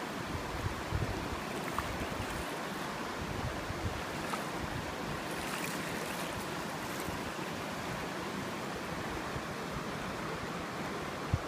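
Steady flowing noise of river water, with some low wind buffeting on the microphone near the start.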